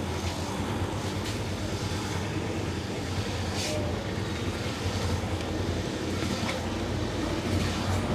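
Steady low rumble of street background noise, with a few soft brushing swishes scattered through it.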